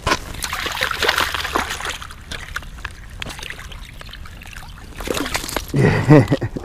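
A smallmouth bass splashing and thrashing as it is hauled up out of an ice-fishing hole, water sloshing, with scuffs and clicks of ice and snow, busiest in the first two seconds. A person's voice sounds briefly near the end.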